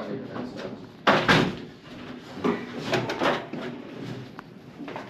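Hard knocks and clatter of work handling: one loud knock about a second in, followed by several smaller knocks and scrapes and a sharp click near the end.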